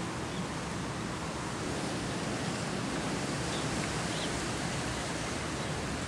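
Steady, even background noise with no distinct events, and a couple of faint short high sounds about halfway through.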